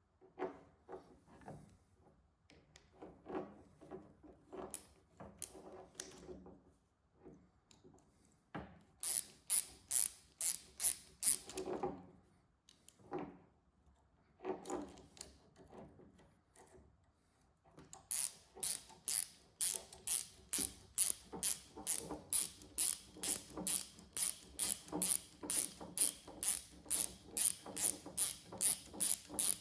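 Hand ratchet wrench clicking as bolts are turned, in short irregular runs at first, then a steady run of about two clicks a second from a little past the halfway point.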